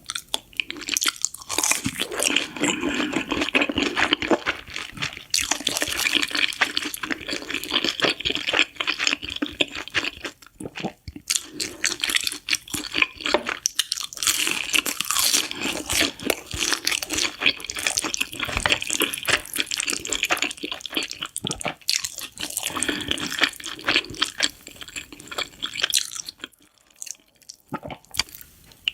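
Close-up eating of spicy noodles: wet slurping and chewing, a dense irregular run of mouth sounds that eases off briefly near the end.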